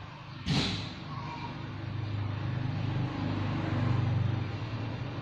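A motor vehicle engine running steadily with a low hum that swells slightly, after a sudden sharp clatter about half a second in.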